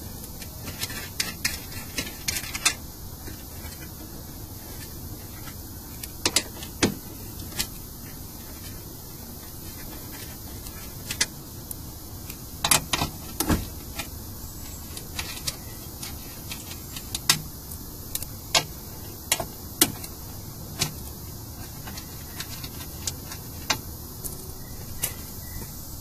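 Irregular sharp metallic clicks and clinks of a hand tool and loose 10mm nuts as the nuts holding a car door's window regulator are worked off, some clicks in quick pairs, over a steady background hiss.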